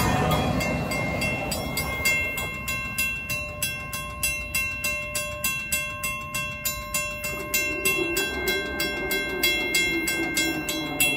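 WCH second-generation mechanical crossing bell ringing in quick, even strikes, while the rumble of the train's last empty well car fades out over the first two seconds.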